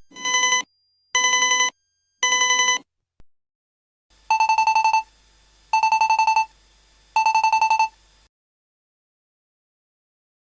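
Shinkansen cab ATC signal chime: three short ringing bursts, then after a pause a second, lower-pitched chime rings three longer bursts, each a rapid trill.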